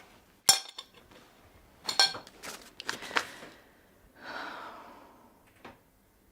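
A few sharp clinks of crockery and cutlery: one about half a second in, then a cluster of them, followed by a long, soft exhaled breath and one last small click.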